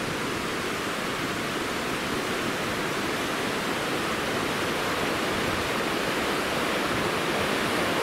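Steady rush of river water, an even hiss that does not change.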